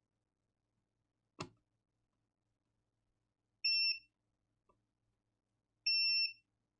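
Digital multimeter's continuity beeper sounding twice, each beep about half a second long, as its probes touch a low-resistance point on a PS5 motherboard. There is a single light click about a second and a half before the first beep.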